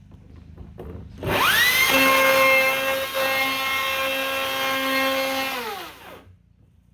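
Chainsaw spinning up quickly to full speed, running steadily for about four seconds, then winding down in pitch and stopping.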